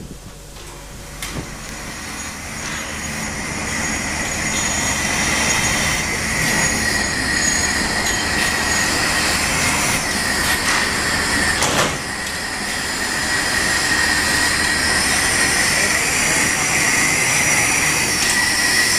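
Steam locomotive 241-A-65, a French 4-8-2 Mountain type, with a steady hiss of steam and a steady high-pitched squeal. The sound grows louder over the first few seconds and then holds.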